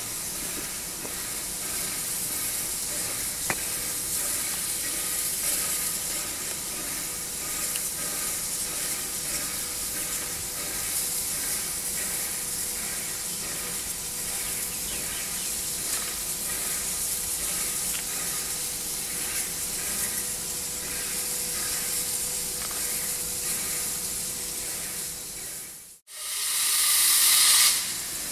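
Victorian Railways R-class 4-6-4 Hudson steam locomotive R766 standing with steam hissing steadily, a faint steady whine underneath. Near the end the sound cuts out for a moment and comes back as a louder rush of steam hiss.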